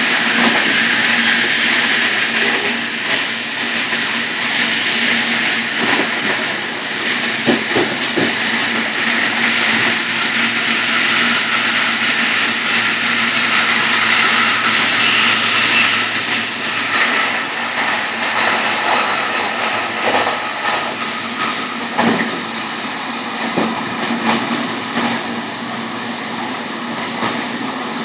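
Running noise of a passenger train at high speed heard at the coupling with a VR Sr2 electric locomotive: a steady rush of wheels on rail over a low hum. A few sharp knocks come through, about seven seconds in and again after twenty seconds.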